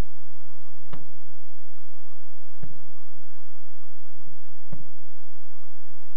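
Camcorder handling noise: three faint knocks, roughly two seconds apart, over a low hum and hiss.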